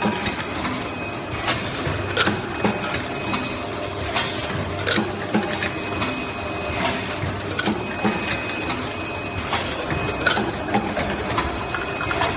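Automatic soft tube filling and sealing machine running: a steady mechanical clatter with sharp clacks every second or so as it cycles, and a faint high whine that comes and goes.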